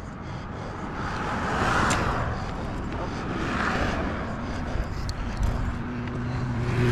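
Vehicles passing on a highway alongside, swelling and fading about two seconds in and again near four seconds, over wind rushing across the microphone of a moving bicycle.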